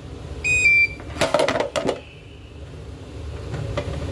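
A two-note electronic beep from a glass-top hob's touch controls, stepping down in pitch, followed about a second later by a brief burst of clattering knocks. A steady low hum runs underneath.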